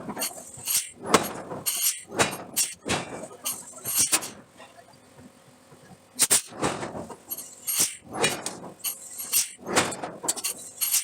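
Steel being forged: a run of knocks and scrapes, about two or three a second, that stops for about two seconds around the middle and then starts again.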